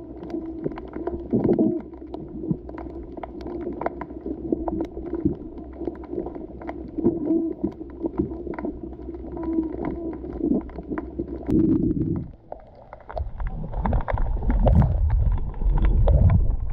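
Muffled underwater sound picked up through a GoPro's waterproof housing: a steady low hum with many scattered clicks and knocks. About twelve seconds in, it gives way to a heavy low rumbling and buffeting of water against the housing as the camera moves up toward the surface.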